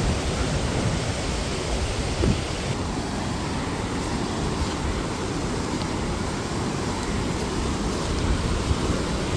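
Waterfall rushing steadily, an even roar of falling water with a few faint knocks.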